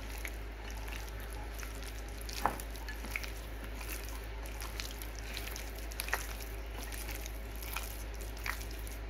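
A hand squishing and mixing marinated boneless chicken pieces in a glass bowl, working rice flour and corn flour into the wet marinade: soft wet squelching with a few sharp clicks.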